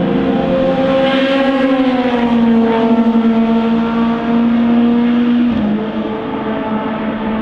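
Endurance race car engine passing at speed. Its pitch falls as it goes by, then holds steady, and drops again near the end.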